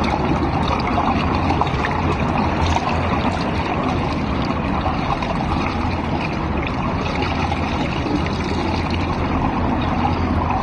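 Swimming-pool water lapping and sloshing right at the microphone, held at the water's surface: a steady rushing, gurgling noise.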